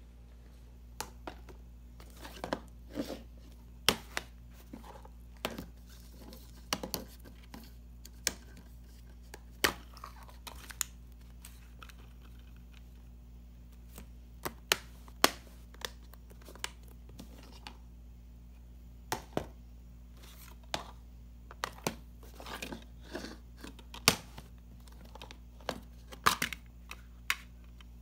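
Plastic DVD cases being handled on a hardwood floor: irregular sharp clicks, snaps and knocks as the cases are opened, closed and set down.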